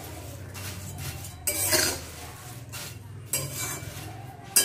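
Metal spatula stirring and scraping dry khoi (puffed rice) around a steel karai as it is dry-roasted: three rustling scrapes, the last one the sharpest, over a steady low hum.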